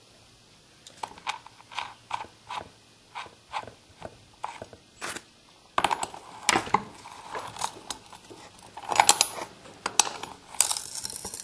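Metal parts of a PE200 edger being fitted by hand: the new edger blade and its retaining nut go onto the blade shaft. Light metallic clicking comes about three times a second, then from about six seconds in there are louder, irregular metal clinks and scrapes.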